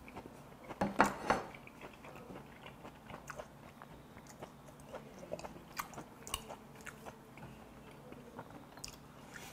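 A man eating braised aged kimchi close to a lapel microphone. A few louder sounds about a second in as he draws a long strand into his mouth, then steady chewing with many small wet clicks.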